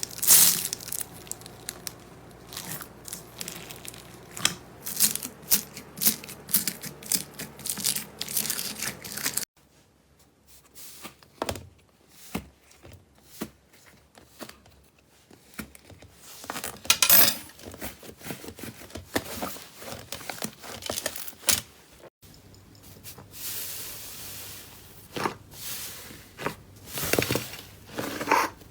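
Slime being pressed and pulled by hand in a run of crackling, popping and tearing sounds. The sound changes abruptly about 9.5 and 22 seconds in, where one clip gives way to the next.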